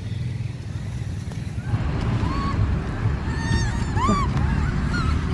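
Rhesus macaques giving several short, high calls that rise and fall in pitch, starting about two seconds in, over a steady low rumble.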